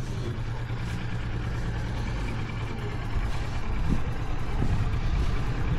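A vehicle engine running steadily with a low hum, a little louder after about three seconds.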